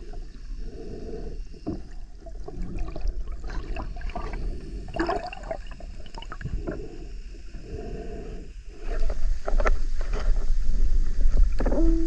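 Underwater sound picked up by an action camera while snorkelling: a low rumble of moving water with scattered clicks, growing louder about three-quarters of the way through. Near the end a short steady tone starts.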